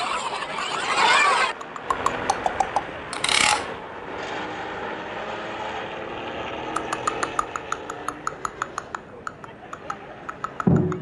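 Cartoon sound effects: a crowd's babble breaks off, a few sharp clicks and a short rushing burst follow, then a steady, rapid ticking of several ticks a second sets in.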